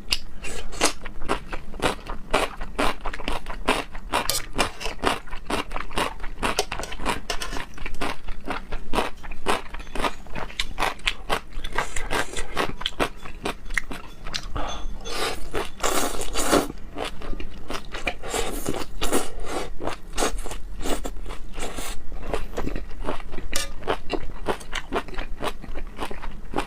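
Close-miked eating of raw seafood sashimi: biting and chewing heard as a dense, continuous run of sharp mouth clicks and smacks, busiest a little past the middle.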